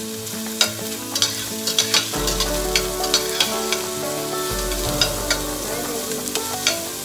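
Diced onions sautéing and sizzling in a stainless steel pot, stirred with a slotted metal spatula that scrapes and clinks against the pot over and over.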